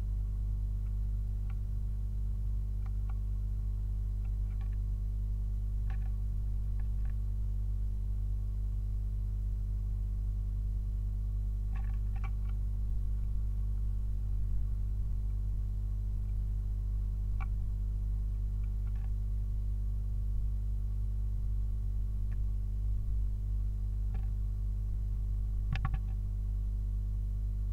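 A steady low electrical hum from the nestbox camera's audio, with faint scattered ticks and scratches as a blue tit moves about on the wooden floor of the box. The ticks come in small clusters about twelve seconds in and again near the end.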